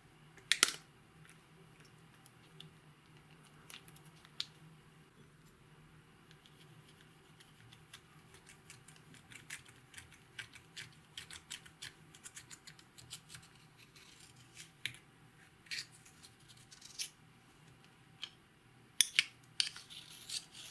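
Scattered sharp clicks and taps of makeup containers and tools being handled in preparation for mixing into slime. There is one loud click about half a second in, a run of small light ticks in the middle, and a quick cluster of clicks near the end.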